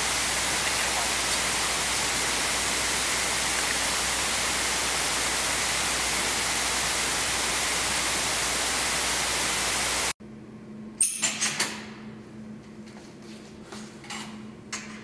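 Steady loud static hiss that cuts off abruptly after about ten seconds. It gives way to a quiet room hum with a low steady tone and a few sharp knocks and clicks, the loudest just after the cut.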